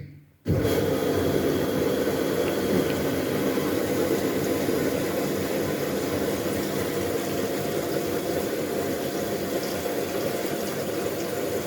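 A new Hisense 10 kg washing machine, just started on the normal cycle, filling with water: a steady rush of incoming water that begins about half a second in and cuts off suddenly at the end.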